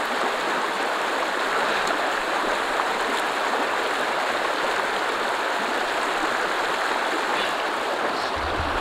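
Fast, shallow mountain stream rushing steadily over stones, its water said to come down cold from glacier or snow.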